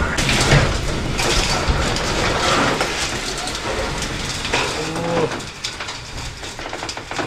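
A corrugated steel garage roller door is lifted open by hand, its metal slats rattling loudly as the curtain rolls up.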